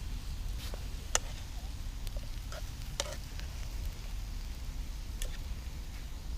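Wood campfire crackling, with a few scattered sharp pops over a low steady rumble.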